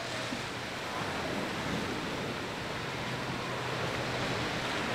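Sea surf washing onto a sandy, rocky beach: a steady rushing noise, with some wind on the microphone.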